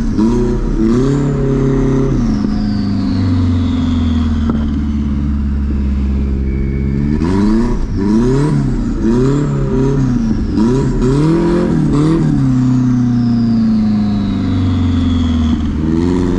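Turbocharged KA24DE inline-four of a Nissan 240SX heard from inside the cabin, revving up and down in quick repeated blips, with a steadier stretch in the middle. A high whistle falls slowly in pitch twice as the revs drop.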